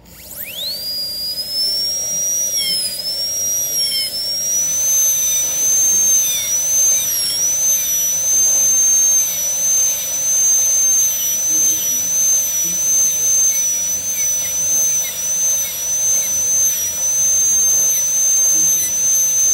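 High-speed air-turbine dental handpiece spinning up to a high whine within the first second, its pitch dipping and recovering again and again as the round diamond bur bears on the plastic model molar. It is cutting a rest seat in the abutment tooth.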